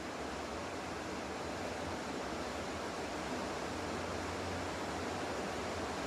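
Steady background hiss with a faint low hum, even throughout, with no distinct sounds standing out.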